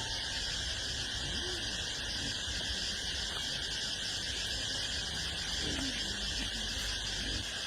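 Steady chorus of insects, several unbroken high-pitched bands sounding together, over a low rumble.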